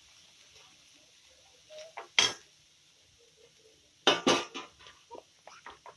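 Slotted metal spoon clinking and scraping against a nonstick frying pan while stirring sautéing vegetables: a sharp clink about two seconds in, a loud pair of knocks about four seconds in, then a few lighter taps.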